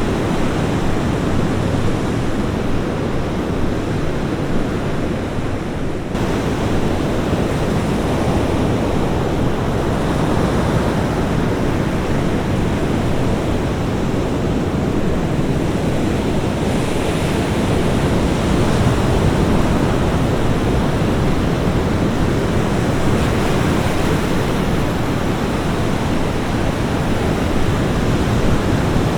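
Ocean surf washing onto a beach: a continuous rushing wash with slow swells as waves break, the hiss brightening around the middle and again near the end.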